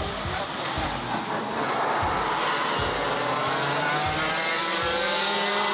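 Two-stroke engine of a junior gearbox racing kart at high revs, its note rising and falling in pitch as it goes through the corners and accelerates.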